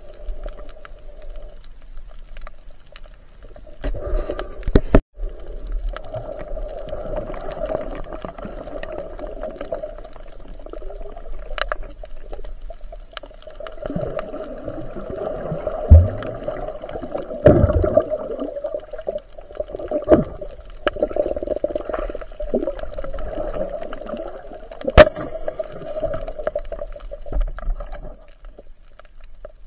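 Muffled underwater sound picked up by a submerged camera: a steady watery hum, broken by sharp knocks now and then. The loudest knocks come about 16 and 25 seconds in.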